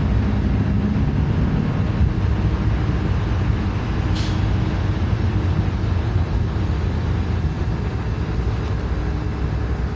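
Double-stack container train rolling past: a steady rumble of steel wheels on the rails, with a brief hiss about four seconds in.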